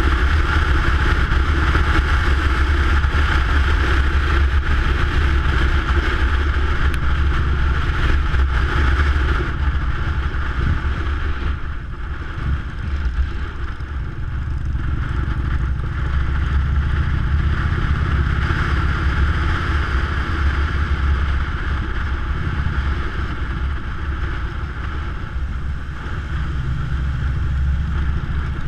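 Touring motorcycle's engine running steadily at road speed, heard with wind noise on the fairing-mounted camera. The engine eases off about halfway through, then picks up again.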